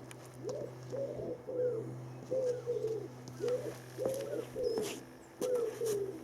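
A pigeon cooing, a run of about ten low, repeated call notes, over a steady low hum.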